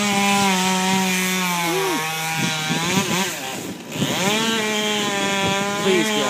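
Stihl 020 two-stroke chainsaw cutting into a red oak trunk, its engine pitch sagging under load for a couple of seconds, dipping briefly near four seconds in, then picking back up to a steady high rev.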